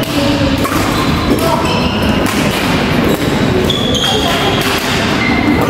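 Badminton doubles rally in a busy sports hall: rackets striking the shuttlecock, with thuds and short squeaks of shoes on the wooden court floor over steady background chatter.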